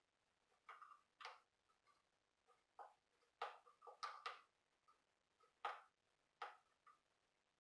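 Faint, irregular sharp clicks and ticks of a metal hand wrench working the 10 mm bolts of the upper timing cover, about a dozen in all, some in quick pairs.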